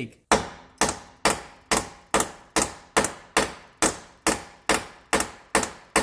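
Hammer striking the head of a bolt threaded into a rear wheel hub assembly: a steady run of about fourteen sharp metal-on-metal blows, a little over two a second, each ringing briefly. The blows are meant to drive out a hub bearing assembly that is rusted fast in its bore.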